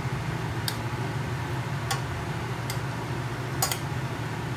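Saucepan of butter melting on an electric hob: a few short, sharp clicks about a second apart over a steady low hum.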